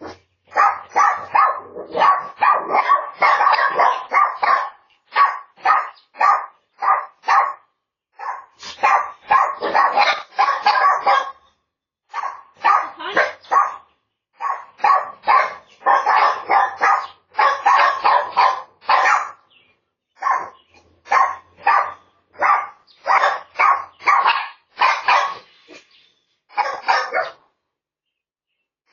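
Dog barking over and over in quick runs of barks with short pauses between them, heard through a Ring security camera's microphone.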